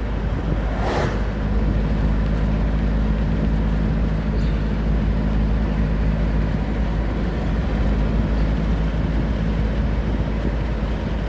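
Car driving, heard from inside the cabin: a steady engine hum over low road rumble, with a short noise about a second in.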